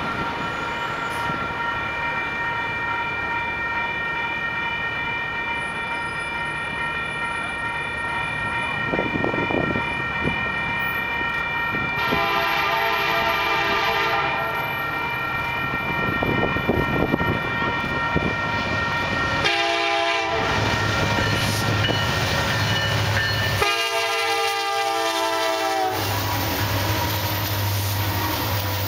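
An approaching Union Pacific diesel freight train sounding its locomotive horn in three blasts, a short one between two longer ones. Near the end the deep drone of the diesel locomotives grows as they pass close by.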